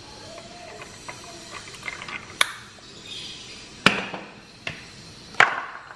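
Hot coffee poured from a moka pot into a glass of ice cubes, then three sharp glassy clinks about a second and a half apart from the ice and glass.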